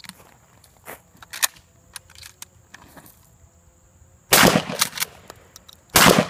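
Two 12-gauge pump-action shotgun blasts from a Mossberg 500, about a second and a half apart, each with a ringing tail, with lighter clicks and knocks before and between them.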